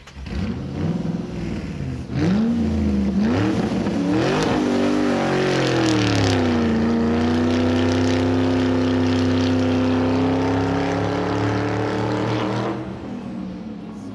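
A vehicle engine revving, its pitch rising and falling several times, then holding a steady note before cutting off near the end.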